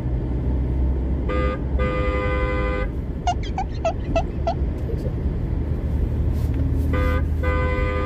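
Car horn sounds played from a speaker inside a moving car: a short beep then a long honk, a quick run of rising chirps, then another short beep and long honk near the end. Under them runs the steady rumble of engine and road noise in the cabin.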